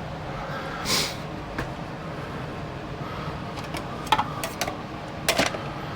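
Steady low background hum, with a few short clicks and knocks scattered through it, around a second in and twice near the end.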